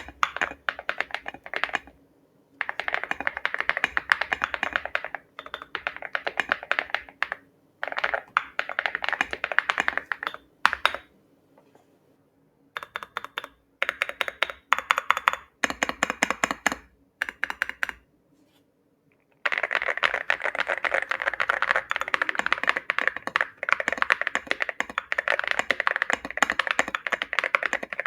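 Mechanical keyboard fitted with KTT Hyacinth linear switches being typed on fast: runs of rapid keystrokes broken by short sudden gaps, then steady unbroken typing from about two-thirds of the way through.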